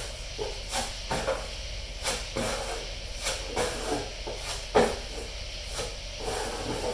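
Body filler being mixed with hardener: a spreader scraping and folding the filler across a mixing board in irregular strokes, with the sharpest scrape nearly five seconds in.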